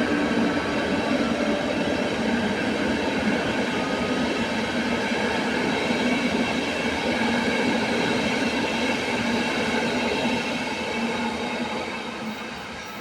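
Passenger train pulling out and rolling past: a steady rumble of wheels on rail with high, steady wheel-squeal tones, fading away over the last couple of seconds as it moves off.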